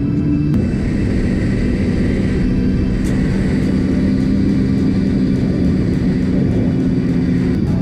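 Arctic Cat snowmobile engine running hard at a steady cruising speed, a loud, even drone with track and wind rush underneath. The pitch shifts once about half a second in.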